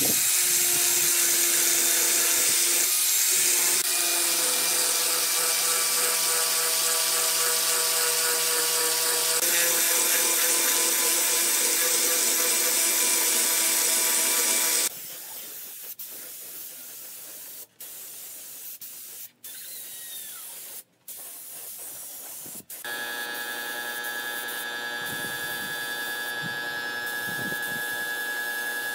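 Angle grinder fitted with a sanding flap wheel, running steadily as it sands the wooden cart, for about fifteen seconds. A quieter stretch with brief dropouts follows. From about 23 seconds a gravity-feed air spray gun hisses steadily with a high tone as it sprays finish.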